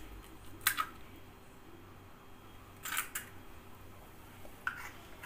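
An egg being cracked and opened over a plastic mixing bowl: a sharp click of shell just under a second in, then a quick pair of clicks about three seconds in.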